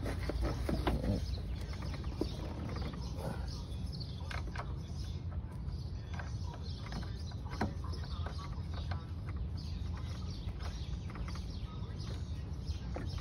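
Scattered small clicks and knocks of hands and tools working on an alternator and its mounting in a car's engine bay, over a steady low background rumble.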